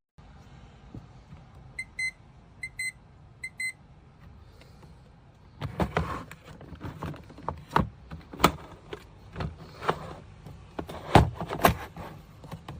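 Electronic double beeps from a mini dehumidifier's control panel, three pairs about a second apart, as its buttons are pressed. Then a run of sharp plastic clicks and knocks as the unit is handled.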